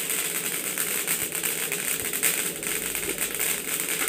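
Sesame seeds crackling and popping as they dry-roast in a hot steel kadhai, stirred with a steel spatula: a dense, continuous crackle of many fine pops. The seeds are toasted and ready to come off the heat.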